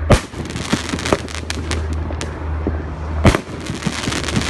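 A 12-shot 2.5-inch shell firework cake going off: two loud bangs about three seconds apart, with a dense spray of smaller crackling pops between and after them.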